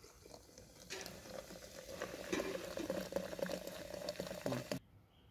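Sprite poured from a plastic bottle in a thin stream into a glass blender jar of lemon juice and mint, splashing and fizzing as it foams. The pour grows louder about a second in and stops abruptly near the end.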